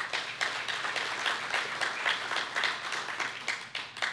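Audience applauding: many hands clapping in a dense patter that thins out near the end.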